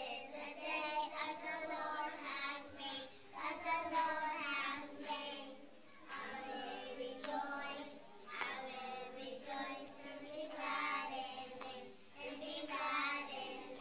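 A group of children singing together in phrases.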